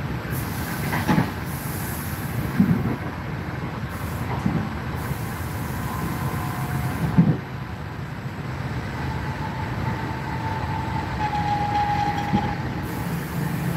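Passenger train running, its steady rumble heard from inside the carriage, with a few dull thuds from the wheels and track at irregular intervals. A faint steady whine comes in during the second half.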